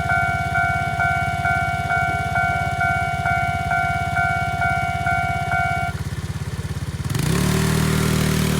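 Railway level-crossing warning bell ringing, about two dings a second, over a nearby engine idling. The bell stops about six seconds in, and a second later a loud rush of noise comes in with an engine note climbing in steps as traffic moves off.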